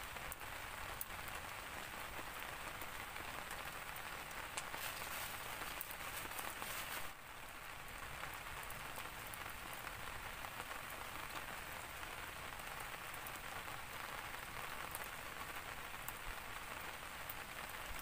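Steady rain falling, with a scatter of small crackles from a campfire burning close by.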